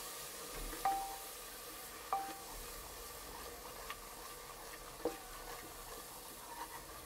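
A spice masala of ginger-garlic paste and ground spices, loosened with a little water, sizzling as it is fried on full flame in a metal pressure cooker. A wooden spoon stirs it and knocks against the pot three times; the first two knocks ring briefly.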